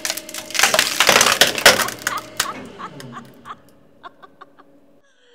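Screwed wooden joint giving way under a hydraulic press: the wood cracks and splinters in a loud burst of snaps about a second in, then thins to scattered snaps as the board splits and the screwed steel plates tear loose.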